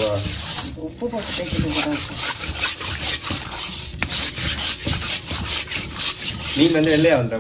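Hands rubbing cut fish pieces with salt against a rough stone bowl: a gritty, rhythmic scrubbing of a few strokes a second. The salt scrub takes the slime off the fish before cooking.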